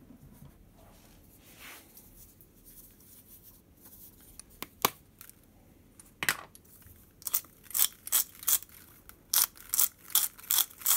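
A handheld spice jar of red flakes worked over a tub. After a couple of single clicks it gives about nine short, crunchy rasps in quick succession in the last four seconds.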